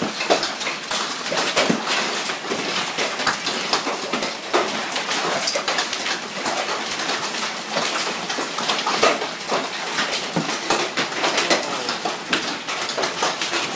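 Heavy hailstorm with large hailstones pelting down: a dense, irregular clatter of hard impacts that goes on steadily without a break.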